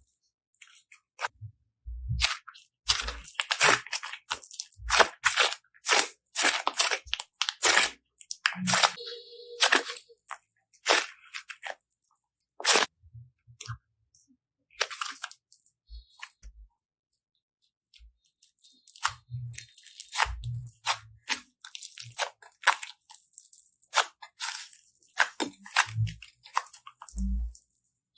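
Slime being squeezed and pressed by hand, giving irregular bursts of crunchy crackling and popping with short pauses between.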